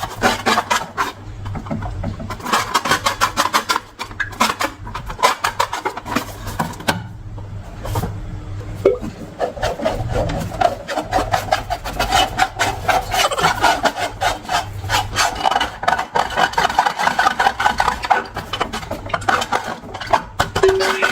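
Hands rubbing and squeezing long rubber balloons and slime: a rapid, continuous rasping, crackling rub.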